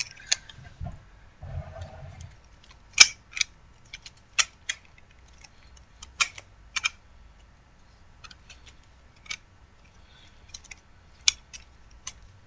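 Popsicle-stick butterfly knife being flipped: the wooden handles and blade clack and click against each other in quick, irregular snaps, with the loudest about three seconds in.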